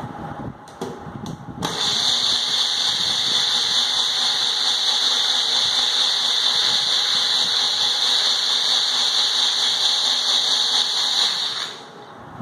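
Electric mixer grinder blending buttermilk with mint and coriander leaves in its tall jar. A few knocks come as the jar is set on the base. The motor then starts suddenly about two seconds in, runs at a steady high whine for about ten seconds, and stops shortly before the end.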